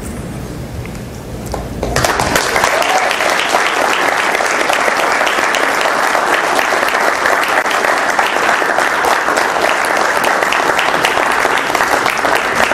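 Audience applauding: a dense, steady clapping that starts about two seconds in and holds on evenly.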